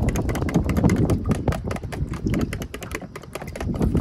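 Fork whisking eggs in a plastic container: a rapid run of light clicks as the tines strike the plastic sides, beating the eggs into an egg wash.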